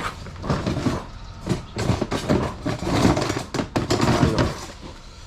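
Irregular knocks and clatter of kitchenware being handled and set down, with no steady rhythm.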